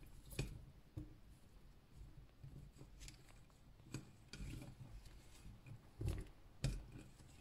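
Soft, scattered knocks and plops as chunks of bell pepper are dropped by hand into a pot of coconut-milk curry, the loudest a pair about six seconds in.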